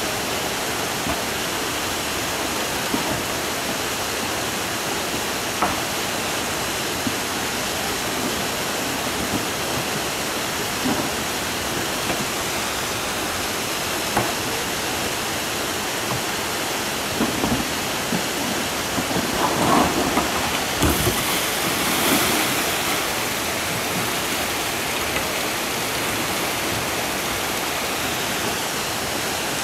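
A fast river in spate after heavy rain, its white water rushing steadily over rocks. A few knocks and a louder burst of splashing come about two-thirds of the way through.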